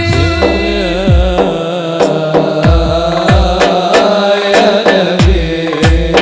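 Sholawat devotional song: a wavering, ornamented vocal line over repeated low drum strokes that each drop quickly in pitch, with sharper hand-drum strokes between them.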